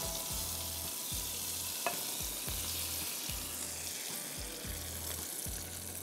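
Hot-oil tempering (tarka) of fenugreek seeds, green leaves and whole dried red chilies sizzling after being poured over tomato chutney in a bowl: a steady hiss, with one small click about two seconds in.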